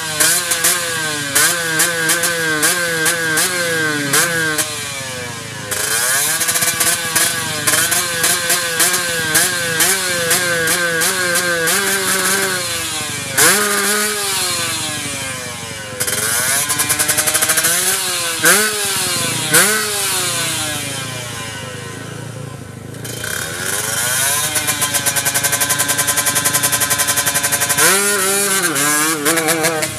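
Kawasaki Ninja motorcycle engine revved over and over in quick blips, its pitch climbing and dropping, with a rapid crackling through the revs and a longer held rev near the end. The engine is running unevenly, which its owner calls coughing.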